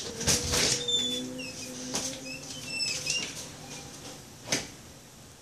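Rustling and light knocks from the camera being handled, with a few short high chirps between about one and three seconds in and one sharp click near the end.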